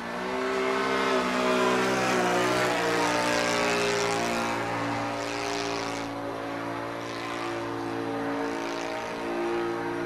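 OS FS-120 Surpass III four-stroke glow engine of a Seagull Yak 54 RC model plane running in flight, driving its propeller. The engine has freshly fitted bearings. The note gets louder about a second in, and its pitch sags and then recovers over the middle.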